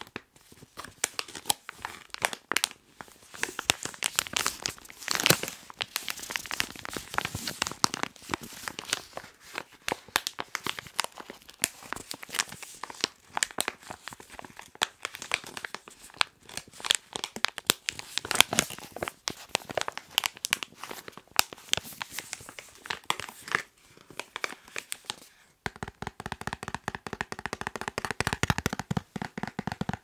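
Fingers tapping and scratching fast on a soft plastic Sephora packet, crinkling its wrapper, in quick irregular clicks. There is a short pause a few seconds before the end, then the tapping resumes more densely.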